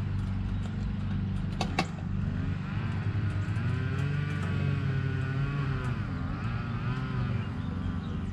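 A nearby engine running with a steady low hum. From about two and a half seconds in, a second pitched drone joins it and wavers up and down in pitch for several seconds. There is a single sharp click near two seconds in.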